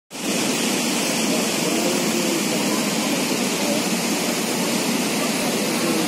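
Steady rush of the Athirapally waterfall, an even, unbroken noise of falling water.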